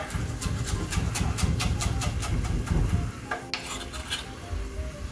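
Chef's knife chopping fresh parsley on a wooden cutting board: quick, regular strokes, about six a second, for some three seconds, then one louder knock.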